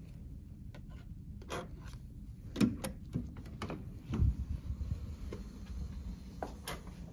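Hotel room door with an electronic keycard lock being unlocked and opened: a series of clicks and clunks from the lock and lever handle, the loudest a little under three seconds in, and the door swinging open near the end.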